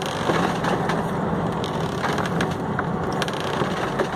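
Steady noise of a fishing boat at sea, with many small clicks and knocks of wood and gear running through it.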